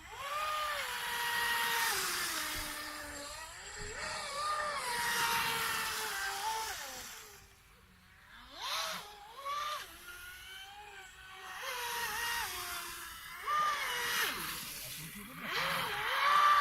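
A Volantex Blade RC speedboat's electric motor, on a 4S battery, whining over a hiss of spray as it runs on the water. The pitch rises and falls repeatedly with throttle and passes. The sound drops away briefly about eight seconds in.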